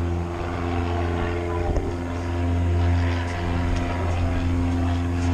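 Piston engine of a light aircraft running at a steady idle: an even, low drone that holds its pitch throughout.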